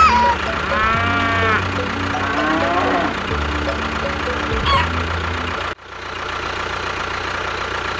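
A small engine running steadily, briefly cutting out about six seconds in, with a few short rising-and-falling calls over it in the first few seconds.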